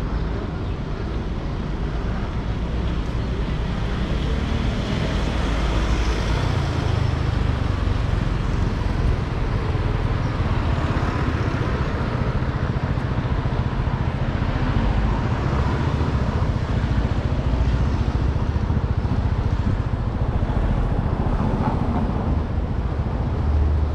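City street traffic: cars and other vehicles passing with a steady low rumble.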